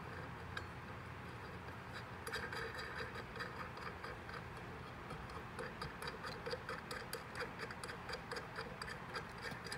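Light metallic ticking, several small clicks a second, as stainless nuts are run down hand-tight onto the studs of a turbo wastegate plate.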